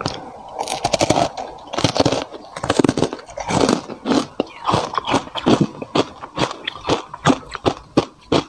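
Hard ice coated in matcha powder being bitten and chewed: sharp crunches, several a second, with a dense crackling run about a second in, as the bitten-off piece is broken up between the teeth.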